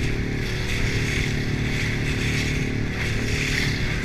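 Small 6.5-horsepower outboard motor running steadily under load, pushing a loaded inflatable dinghy through choppy water, with a hiss of wind and water over it. The narrator judges the motor not strong enough for the chop.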